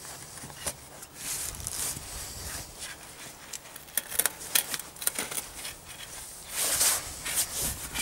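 Hands working a bicycle tyre onto the rim of an e-bike rear wheel: irregular rubber-on-rim rubbing and scuffing with scattered small clicks, mixed with the rustle of a padded nylon jacket.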